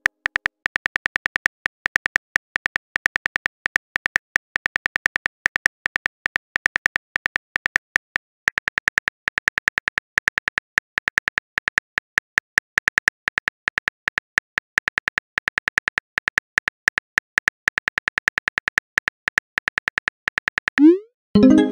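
Texting-app typing sound effect: a rapid, steady run of short keypress clicks as a message is typed out letter by letter. Near the end a quick rising swoosh and a short pitched pop as the message is sent.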